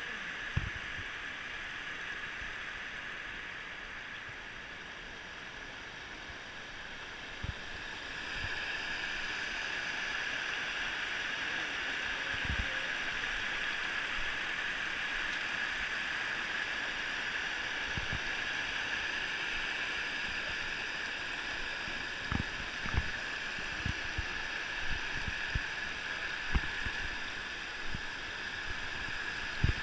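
Shallow river water rushing over rock ledges in small rapids, a steady hiss that grows louder about eight seconds in. Several low thumps come through near the end.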